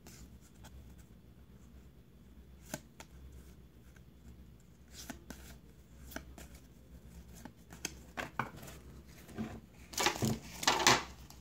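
Trading cards being flipped through by hand: soft scattered ticks and slides of card against card, with a louder rustle near the end.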